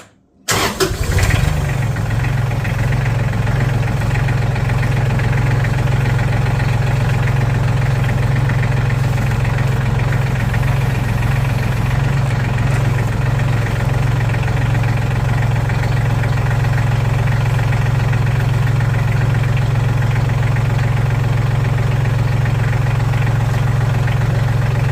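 Massey Ferguson tractor engine starting and catching about half a second in, then idling steadily, run to check whether the freshly tightened power steering line fitting still leaks.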